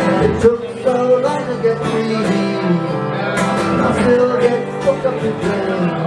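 Acoustic guitar played live, strummed in a steady rhythm.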